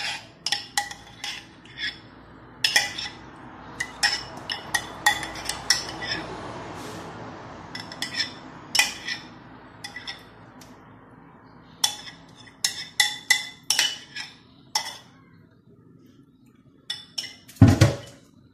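A spoon clinks and scrapes against a bowl and a glass dish as thick chocolate cream is scraped out and spread, in clusters of sharp taps. Near the end comes a louder knock with a dull thud as a bowl is set down.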